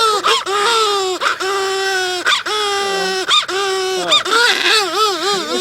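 A person imitating a crying infant: a run of long, level wails with short breaks, turning into a wavering, warbling cry near the end.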